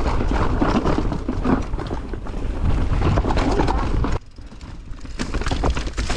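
Mountain bike rolling fast over a rough, chunky downhill trail: tyre noise, rattling of the bike and wind on the microphone, with many small knocks from rocks and roots. About four seconds in it drops off sharply as the bike slows to a stop, leaving only faint clicks and rustle.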